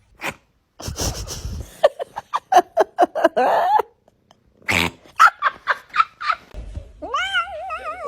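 Cats making unusual vocalisations: a noisy burst, then a rapid run of short pitched calls, and near the end a long wavering yowl whose pitch wobbles up and down.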